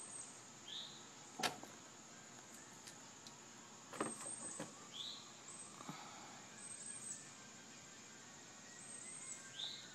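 Quiet outdoor ambience: a steady high insect drone, with a bird's short rising chirp three times, evenly spaced, and a few faint sharp clicks and knocks.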